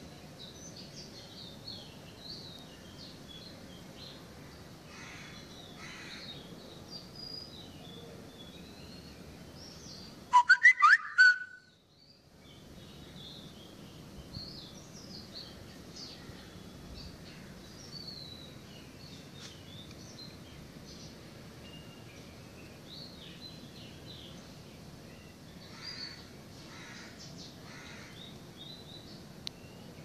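Many small birds chirping and twittering in short, high-pitched calls throughout. About ten seconds in comes a loud burst of about a second: rapid sharp clicks and a warbling whistle.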